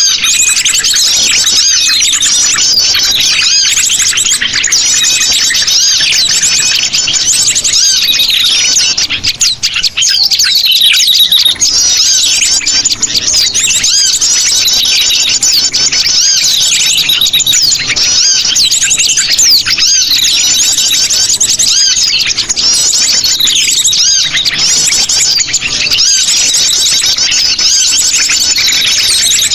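Sogon birds calling noisily in a dense, continuous flurry of overlapping high chirps and trills, a lure recording used to attract birds for trapping.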